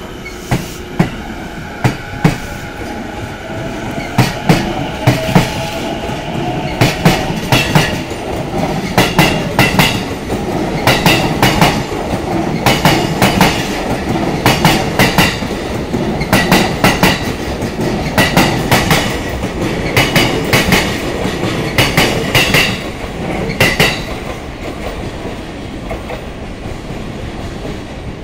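E233-series electric train pulling away, with its motor whine rising in pitch for the first several seconds, then its wheels clattering over rail joints in clusters of two to four knocks that come faster as it gathers speed. The double-deck Green cars give the joint sound a slightly unusual rhythm. The clatter fades after about 24 seconds.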